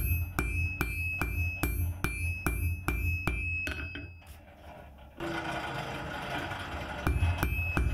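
Hand hammer striking a glowing damascus steel billet on an anvil, about three blows a second, each leaving a high ring from the anvil. The hammering stops about four seconds in, giving way to a steady rushing noise, and starts again near the end.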